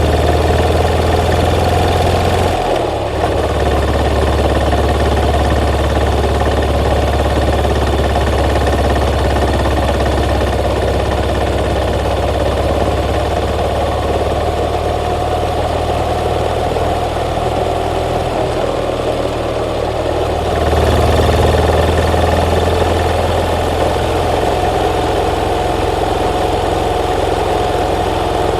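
Yamaha SR400's air-cooled single-cylinder engine running steadily, its note changing briefly about 3 seconds in and again about 21 seconds in.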